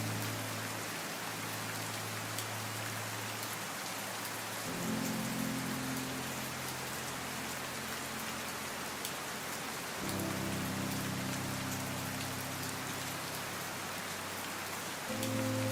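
Steady rain falling, an even hiss, over a soft low sustained music pad whose chord changes about every five seconds.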